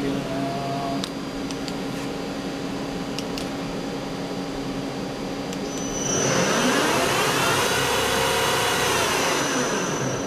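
Nakamura lathe powered up with a steady hum. About six seconds in its spindle spins up, a whine that rises in pitch and grows louder, then falls in pitch as it slows again near the end.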